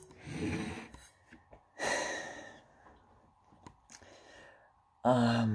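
A man's breathing: two soft exhales or sighs, then a short low hum starts near the end.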